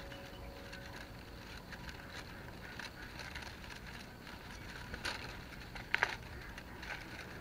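Thin bamboo strips clicking and rustling against one another as they are threaded over and under to weave a basket base, with a sharper click about six seconds in.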